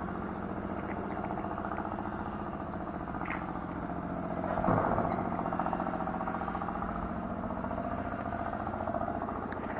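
An engine running steadily, briefly louder about halfway through.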